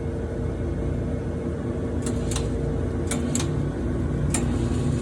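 A steady low machine hum and rumble, with a few sharp high clicks, mostly in pairs about a third of a second apart, starting about two seconds in.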